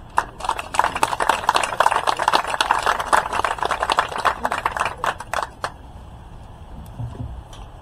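Crowd applauding, dense clapping that dies away about five and a half seconds in.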